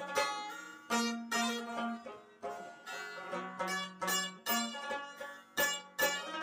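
Background music: an instrumental of plucked strings, each note struck sharply and then fading, in a steady rhythm.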